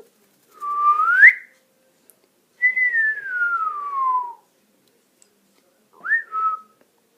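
African grey parrot whistling three notes: a short rising whistle, then a long whistle gliding down, then a brief up-and-level note.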